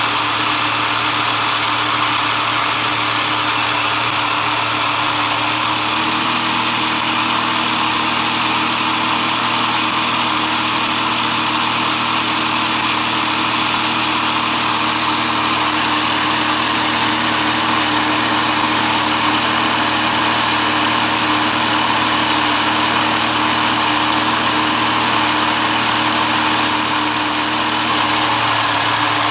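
Motorized LEGO model of a Toyota 4A-GE engine running steadily: its electric motor whirs while the plastic pistons, crank and belt pulleys clatter. About six seconds in, the tone of the hum shifts slightly.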